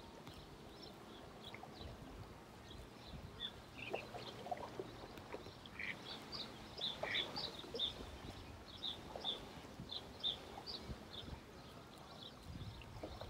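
Small birds chirping in short, scattered high calls, more often in the second half, over a faint low background rumble.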